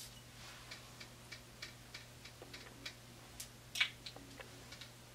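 Faint light clicks, about three a second, with one sharper click a little before four seconds in; a steady low hum underneath.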